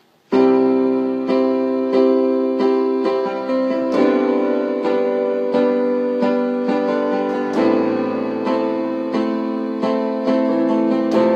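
Piano intro to a song, without singing: notes struck about every two-thirds of a second over ringing chords, starting suddenly a moment in.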